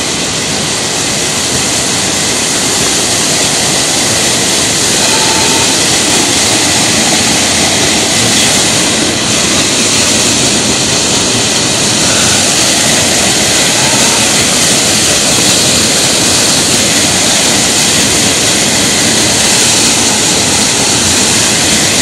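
Steady, loud roar of a waterfall heard close up, a dense even rush of falling water.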